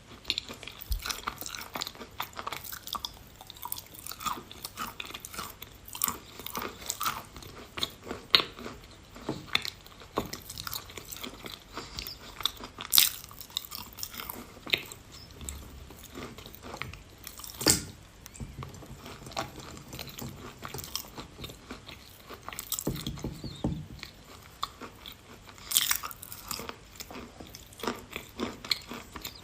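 A person biting and chewing pieces of edible chalk close to the microphone: crumbly crunches among steady chewing, with a few sharper, louder bites.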